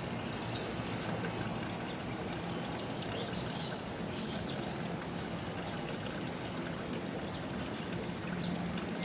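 Fully automatic washing machine filling its drum with water, a steady pouring and trickling, as it takes on the large amount of water a comforter load needs.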